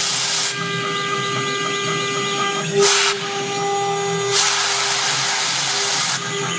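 The CNC router's 1.5 kW air-cooled spindle runs with a steady whine, broken by loud hissing bursts of cutting noise as the bit works the circuit board. Two short bursts come at the start and about three seconds in, and a longer one lasts nearly two seconds.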